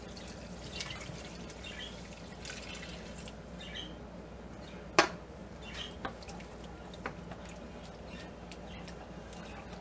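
Chicken broth pouring and trickling from a can into a skillet of sautéed vegetables, with scattered small clicks and one sharp tap about halfway through, then a wooden spoon stirring the liquid in the pan.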